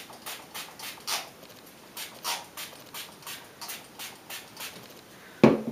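Pump spray bottle of Bumble and Bumble Surf Spray being pumped over and over onto damp hair, a quick run of about fifteen short hissing spritzes at roughly three a second, with a brief pause between the first few and the rest. Near the end there is a single louder thump.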